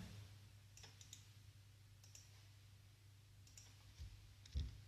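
Faint computer mouse clicks: half a dozen single clicks spaced irregularly, the strongest near the end, over a low steady hum.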